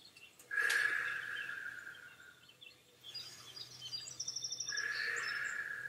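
A woman blowing out hard through pursed lips, two long exhales about four seconds apart, each as she rises out of a squat. A short, rapid bird trill sounds between them.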